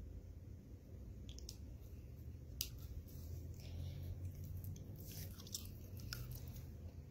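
Raw beef steak being squeezed in the hands and bitten into: a few scattered wet smacks and squelches over a steady low hum.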